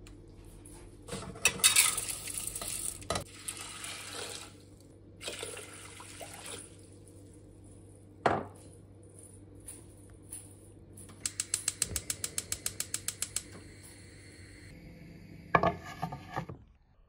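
Water and dry lentils poured into a nonstick cooking pot, with clinks of the pot, then a single knock. Later a quick run of about twenty even clicks, and a bamboo cutting board set down on the counter with a knock near the end.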